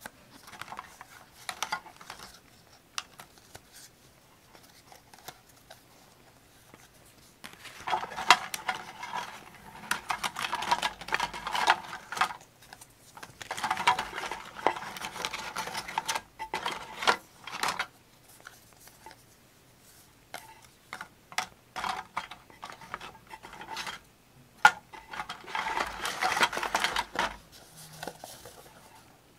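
Paper and craft materials being handled on a desk: three spells of rustling and scraping, separated by scattered light clicks and taps.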